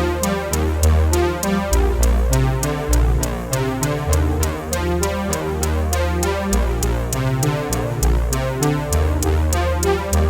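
Electronic background music: a steady drum-machine beat with synthesizer notes and a strong bass line.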